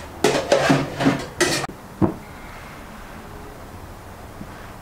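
Aluminium cooking pot and lid being handled: a quick run of knocks and scrapes in the first second and a half, then one more knock about two seconds in.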